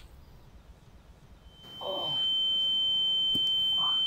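A steady, high-pitched ringing tone fades in about two seconds in and holds without change: a film sound effect of ringing ears, standing for the dazed, half-blind state of someone who has lost his glasses.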